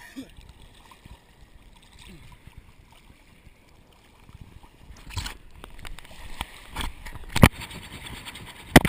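Sea water sloshing around an action camera held at the surface, quiet for the first half, then several sharp splashes and knocks of water against it in the second half.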